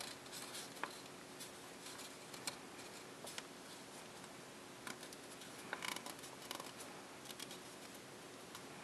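Sheet of printed copy paper being creased and pinched by hand during origami folding: faint scattered crinkles and clicks, with a denser cluster of crackles about six seconds in, over a low steady hum.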